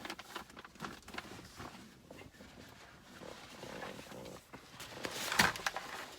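A taped parcel being handled and picked at by hand: rustling, scraping and scattered small clicks of packaging, with one short, sharper and louder noise a little over five seconds in.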